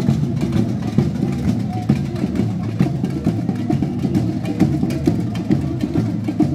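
Samba drumming, a steady stream of drum strikes, with crowd voices mixed in.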